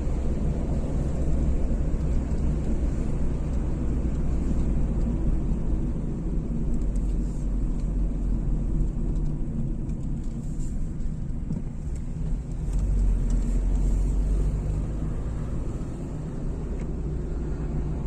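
Car cabin noise while driving: engine and tyre road noise heard from inside the car, a steady low rumble.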